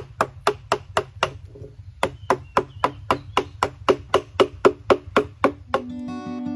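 Wooden mallet striking a carving gouge into a log, a steady run of sharp wooden knocks about four a second, with a short pause about one and a half seconds in. The knocks stop near the end, where acoustic guitar music begins.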